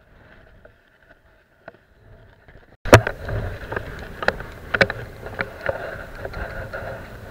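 Faint at first, then a sudden jump about three seconds in to loud handling noise. Irregular clicks and knocks come from a spinning rod and reel being worked right at the body-worn microphone, over a steady rush of noise.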